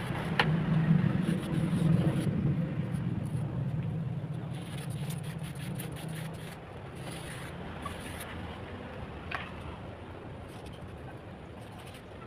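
A wooden strip scraping and screeding wet cement mortar along a concrete mould, with a few light clicks. Under it runs a steady low engine hum that eases off about halfway through.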